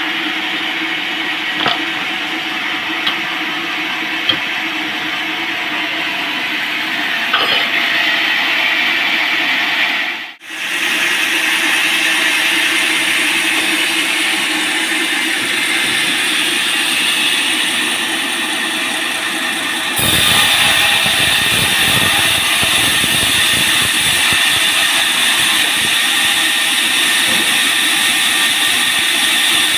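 Band sawmill running steadily while sawing a large teak log. The sound cuts out for a moment about a third of the way through and turns louder and fuller about two-thirds in.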